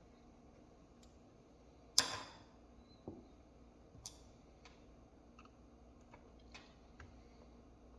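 Small hard parts being handled: one sharp click about two seconds in, then several lighter clicks and ticks.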